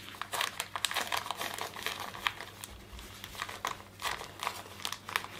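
Baking paper crinkling in irregular crackles as it is peeled and loosened from the edges of a sheet of baked sponge cake.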